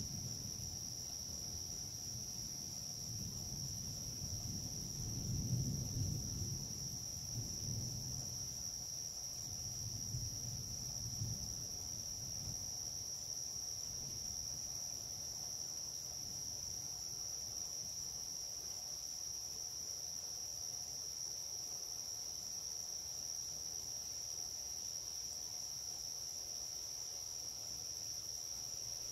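Steady high-pitched chirring of night insects. A distant low rumble of thunder swells and fades over the first dozen seconds, loudest about five seconds in.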